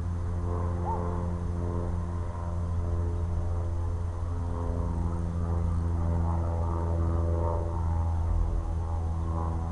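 Low droning music of held tones, loudest in the bass, the notes shifting every few seconds.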